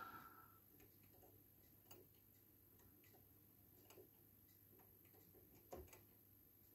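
Faint, regular ticking of a Scott notched-wheel electric pendulum wall clock, about one tick a second, as its pendulum-driven pawl works the toothed wheels. A brief louder noise comes right at the start.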